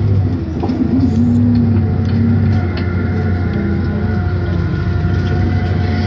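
A tour coach's engine running steadily as it drives, with a low, even hum.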